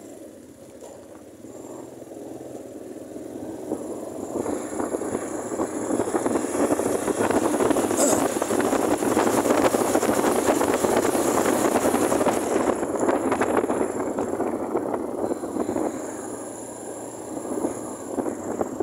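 Motorcycle riding on the road: its engine and the wind rushing past the microphone build up as the bike pulls away and gathers speed from about four seconds in, then ease off somewhat in the last few seconds.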